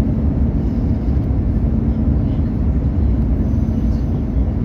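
Steady low rumble of an airliner's turbofan engines and rushing air, heard inside the cabin on the approach to land, with a faint steady hum beneath it.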